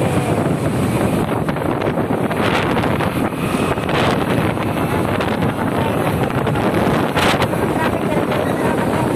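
Steady wind rush buffeting the microphone of a phone held out on a moving motorcycle, with the motorcycle and road traffic running beneath it.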